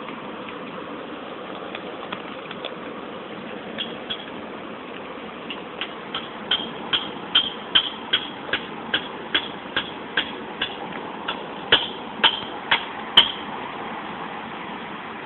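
A run of sharp, evenly spaced clicks or taps, about two to three a second, growing louder and stopping about two seconds before the end, over a steady background hum.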